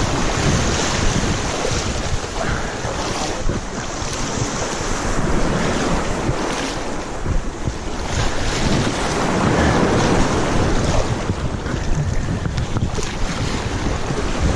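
Wind buffeting the microphone over surf washing against a rocky shoreline, a loud, uneven rushing noise.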